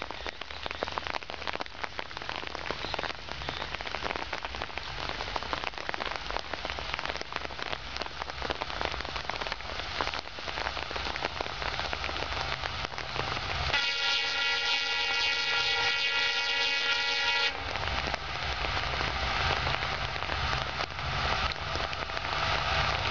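Steady rain falling while a WDG-4 diesel locomotive approaches, its engine hum growing louder. About two-thirds of the way in, the locomotive's horn sounds one long blast of nearly four seconds.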